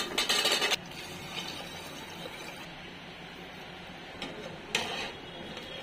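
Boiled chickpeas tipped off a steel plate into a metal pot, a rattling clatter of many small hits lasting under a second. Then a steady low hiss, with a click and a short clatter near the end.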